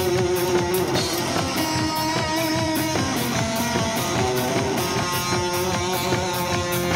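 Live band music: guitars playing a melodic line of held notes over a steady drum beat.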